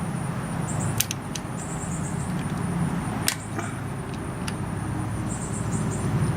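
A few sharp metallic clicks from a wrench on the 14 mm fuel-system bleed bolt as it is cracked open, one about a second in and a louder one a little past three seconds, over a steady low hum.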